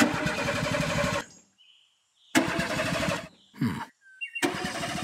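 Vehicle engine sound effect in three bursts of about a second each, every burst starting and stopping abruptly with silence between.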